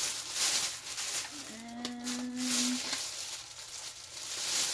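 Plastic bag and wrapping crinkling and rustling as raw fish fillets are handled and unwrapped. About one and a half seconds in, a woman gives a short, level hum lasting over a second.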